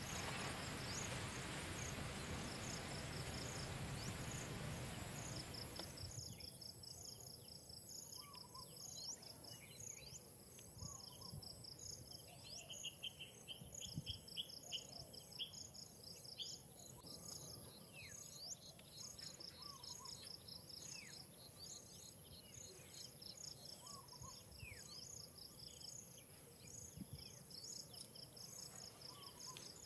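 Outdoor ambience of insects trilling in rows of rapid, high-pitched pulses, with occasional short, falling chirps. For the first six seconds a steady, even hiss covers it, then cuts out suddenly.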